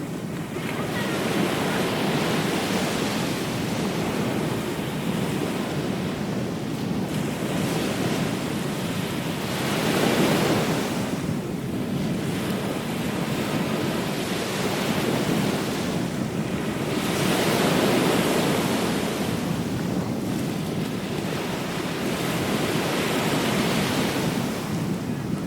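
Ocean surf: waves breaking and washing up the shore, swelling every few seconds, with wind rushing over the microphone.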